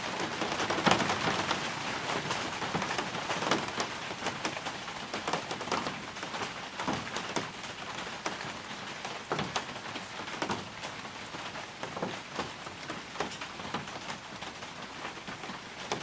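Rain falling on a balcony, a steady patter with many separate drops striking close by, growing gradually quieter.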